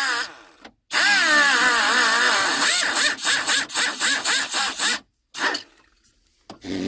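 Electric grinder cutting into a plastic dash panel, its motor whine sagging and climbing in pitch as it loads up in the cut, over a gritty hiss. It stops about five seconds in, followed by a couple of brief, fainter touches.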